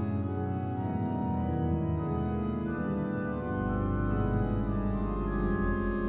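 Organ music playing held chords, with a deep bass note joining about three and a half seconds in.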